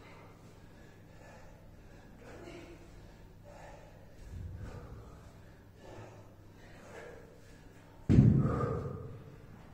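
A person breathing hard, with gasping breaths, while exercising with a kettlebell. There is a soft thud about four seconds in and a loud thud about eight seconds in that dies away over about a second.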